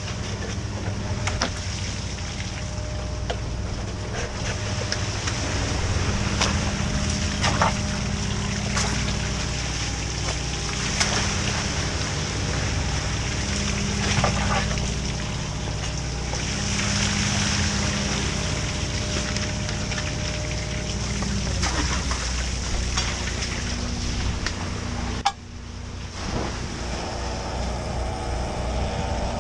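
A crab fishing boat's engine running steadily, under seawater spraying and splashing from a deck hose, with occasional sharp knocks of crab pot gear being handled. Near the end a higher mechanical whine joins in.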